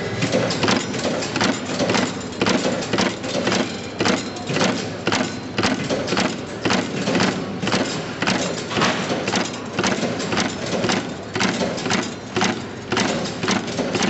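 Sai Paradise motor-driven wire terminal crimping press striking again and again, a fast run of sharp clacks at about two to three a second as wire ends are crimped into terminals.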